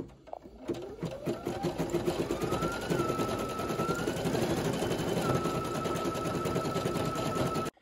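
Brother Innovis NV880E embroidery machine stitching: a fast, even needle clatter with a motor whine that rises as it speeds up in the first seconds, then holds steady until it cuts off abruptly near the end.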